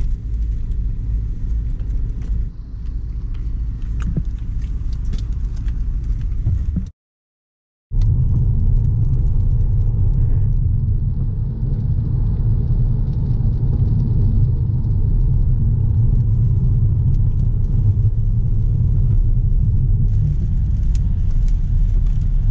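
Steady low rumble of a car driving, heard from inside the cabin. It cuts to silence for about a second, seven seconds in, then resumes a little louder.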